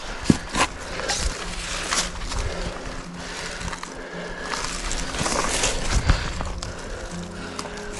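Scuffing, rustling and irregular knocks of a person hauling up a steep bush slope on a rope climb, close to the camera, with a sharp knock just after the start and another about six seconds in.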